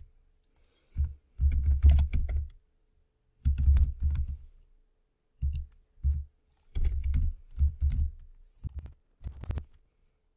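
Typing on a computer keyboard in about seven quick bursts of keystrokes with short pauses between them.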